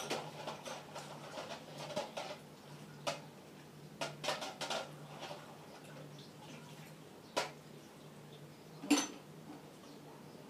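Scattered sharp clicks and clinks, like small hard objects knocking together, with the loudest clink about nine seconds in, over a steady low hum.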